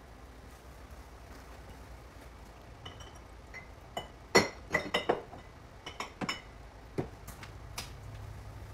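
Metal and glass kitchenware clinking: about a dozen sharp, ringing clinks over a few seconds, the loudest about four and a half seconds in.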